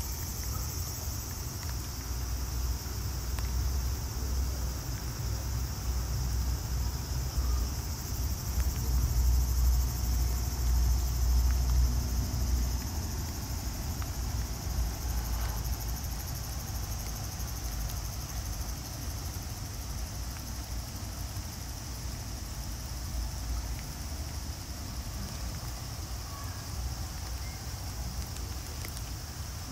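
Outdoor ambience: insects droning in a steady high, even band over a low, unsteady rumble. The rumble swells for a few seconds about a third of the way through.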